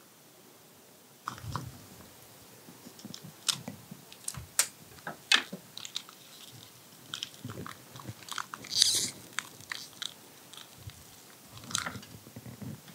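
Kitchen knife slicing a tomato on a plastic cutting board: irregular sharp clicks and crunches as the blade cuts through and taps the board. Later, paper towel and cheese wrapping crinkle as mozzarella slices are handled, with a louder rustle about nine seconds in.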